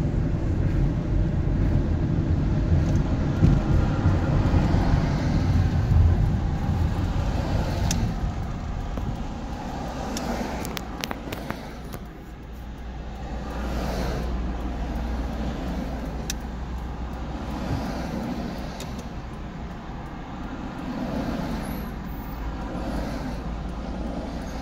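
Road and traffic noise from a car being driven: a steady low rumble with tyre hiss, louder for the first several seconds and easing off about halfway through.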